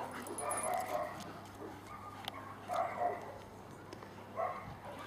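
A dog barking faintly a few times, in short separate bursts.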